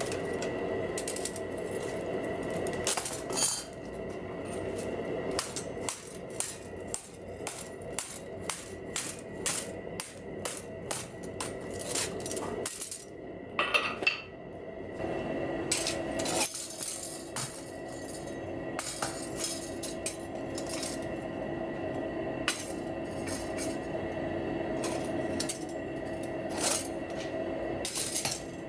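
Light metal clinking and tapping, many small irregular hits: forged steel mop strands knocking together as they are handled and shaped, over a steady background hum.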